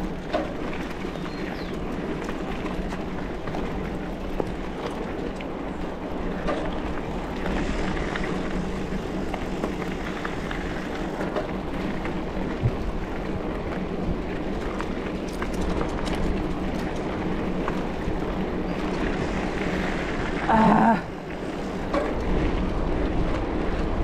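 Steady wind and rolling noise while riding a mountain bike, with a brief pitched sound about 21 seconds in.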